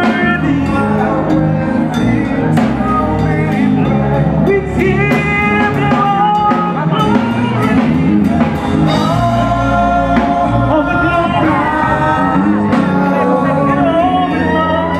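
Loud music with singing over a drum beat.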